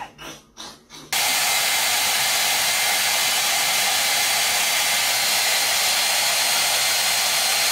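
Handheld hair dryer running steadily, a constant airy hiss with a faint high whine, starting abruptly about a second in.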